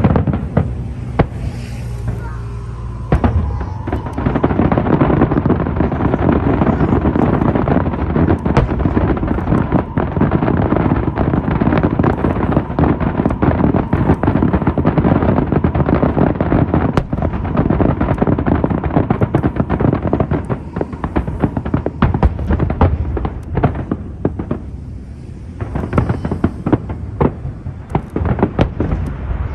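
Aerial fireworks display: a dense, continuous barrage of crackling bursts and booms, easing briefly about three quarters of the way through.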